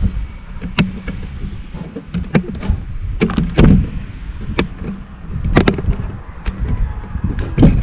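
A series of irregular knocks and thumps, the loudest about three and a half seconds in and near the end, over a low rumbling background.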